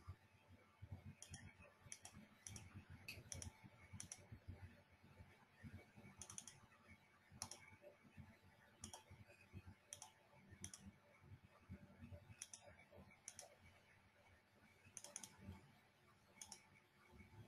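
Faint computer clicks at irregular intervals, a dozen or so, over near-silent room tone.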